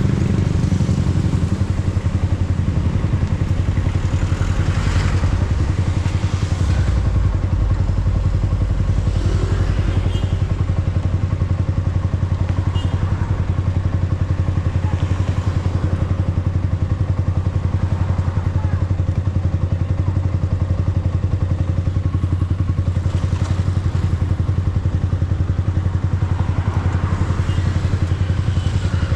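Yamaha R15M's single-cylinder engine idling steadily while the bike stands still, with other vehicles passing close by a few times.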